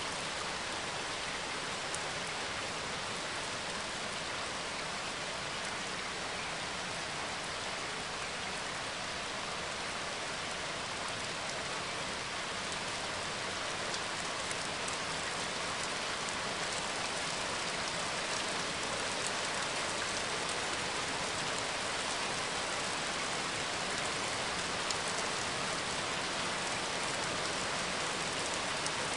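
Recording of steady rain falling on a surface, an even hiss with small drop ticks scattered through it.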